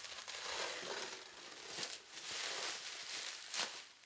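Black plastic wrapping on a machine crate being pulled and torn open by hand: a continuous crackly rustle of plastic with louder surges, and a sharp rip about three and a half seconds in.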